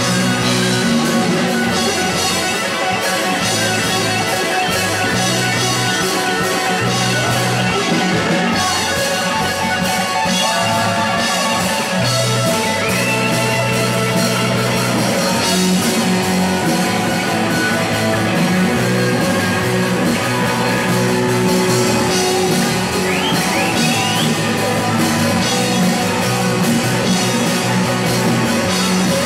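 Live rock jam on two electric guitars playing lead lines together, with drums, and bent notes that glide up in pitch about halfway through and again later.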